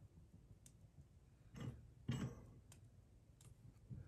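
Near silence: room tone with a few faint scattered ticks and two brief soft noises about halfway through.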